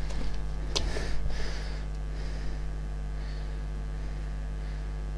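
Steady electrical mains hum, with a single sharp click just under a second in and faint rustling of handling.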